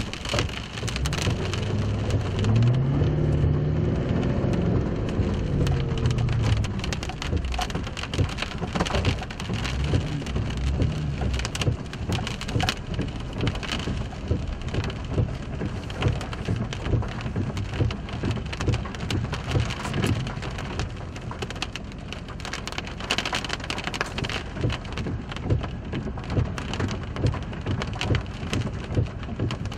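Heavy rain striking a vehicle's roof and windshield, a dense, steady patter of drops. In the first several seconds a low engine note rises and then falls in pitch.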